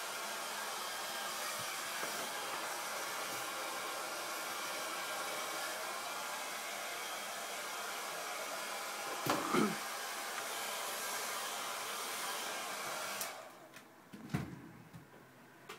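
Steady rushing noise of a small blower motor, cutting off suddenly about thirteen seconds in, with a brief vocal sound rising above it about nine and a half seconds in.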